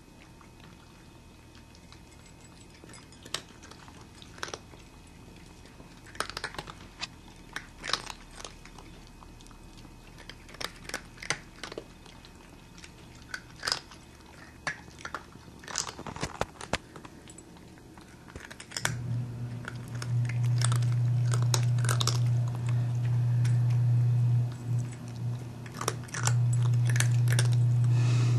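Cats crunching and chewing their food: irregular sharp crunches, some in quick clusters. About two-thirds of the way through, a loud low steady hum comes in over the chewing, drops out briefly once, and comes back.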